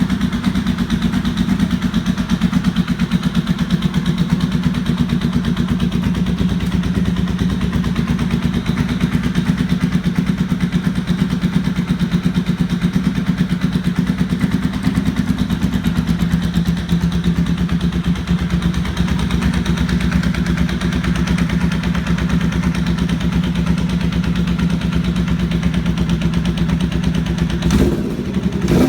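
1992 Honda VFR750's V4 engine idling steadily with a loud, rhythmic knocking, with a short louder burst about a second before the end. The knock came from two missing exhaust header bolts on the front cylinder head, with part of the head's casing sheared away.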